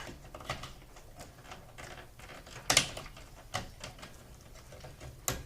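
Small plastic clicks and rattles of a SATA data cable connector being handled and pushed at a motherboard port, with a sharper click about two and a half seconds in and another near the end.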